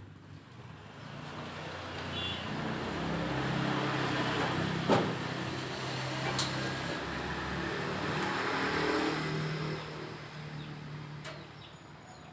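A motor vehicle engine running as it passes: it grows louder over the first few seconds, holds, then fades about ten seconds in. There is one sharp click about halfway through.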